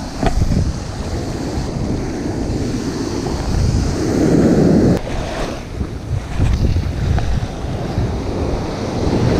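Ocean surf washing onto the beach, with wind buffeting the microphone in gusts; the rush swells about four seconds in.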